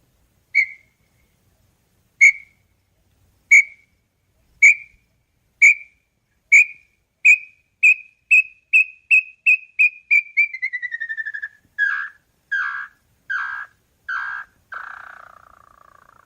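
Small-billed tinamou (inhambu-chororó) singing: clear whistled notes, slow at first, that speed up into a fast trill falling in pitch, then break into about five slower, lower, rougher notes, the last one trailing away.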